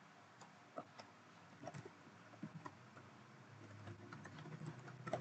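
Faint, scattered computer keyboard keystrokes and mouse clicks, irregular rather than in a steady run, with a sharper click near the end.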